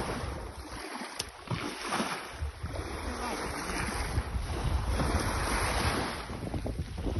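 Sea waves washing in and out on the shore, swelling and fading every couple of seconds, with wind rumbling on the microphone.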